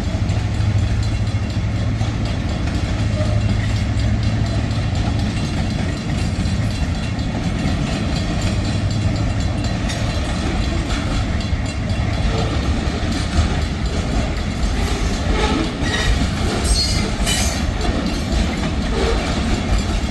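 EMD SD40-2 diesel locomotive running as it approaches, a steady low drone that is strongest in the first few seconds, with a few brief higher sounds near the end.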